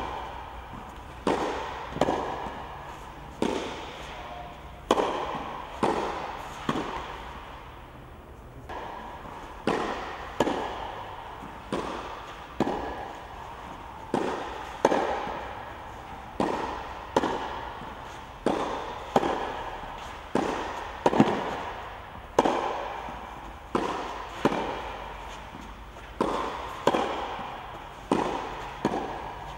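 Tennis ball struck again and again with a racket and bouncing on the clay court, about one sharp pop every second, each echoing under the dome roof. The hits stop briefly about seven seconds in, then pick up again.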